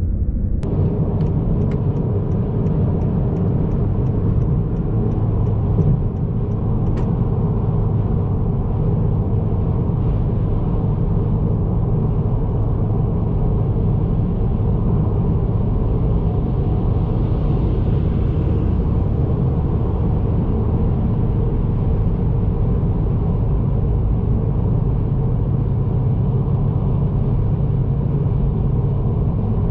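Steady in-cabin road and engine rumble of a 2022 Honda Accord Sport 1.5T cruising at highway speed. For the first several seconds its turn signal ticks about three times a second for a lane change.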